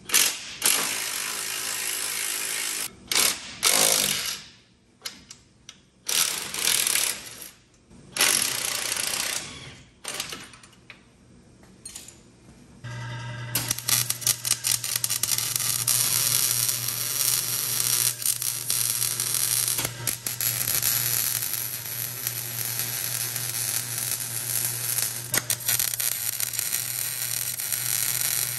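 Wire-feed (MIG) welder running a continuous crackling weld bead over a steady low hum from about halfway on, welding the steering-box reinforcement plate to the truck frame. Before that, a string of short noisy bursts with quiet gaps between them.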